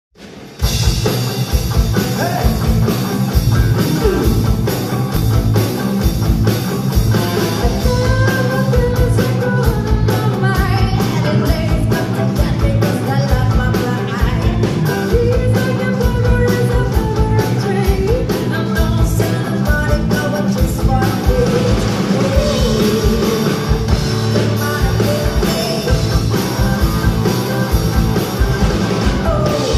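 Live band playing with a woman singing into a microphone, backed by electric and bass guitars, drums and keyboard over a steady drum beat. The music comes in about half a second in.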